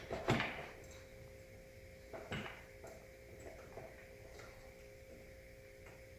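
Metal clinks and knocks from handling chair-assembly hardware: a sharp clank just after the start, a second one about two seconds later, then a few lighter ticks, over a faint steady hum.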